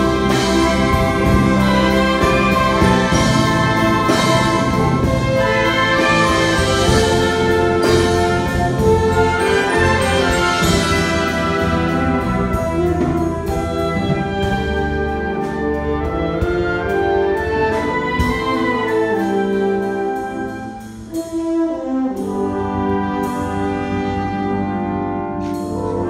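A wind orchestra playing live, with brass leading over woodwinds, piano and percussion. The full band is loud through the first half, eases off, and drops back briefly about twenty seconds in before picking up again.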